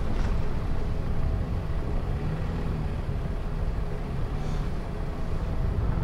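A car driving along a snow-covered road, with a steady low rumble from the engine and the tyres.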